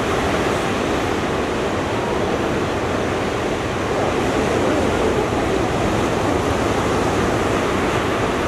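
Steady rush of ocean surf on the beach, mixed with wind.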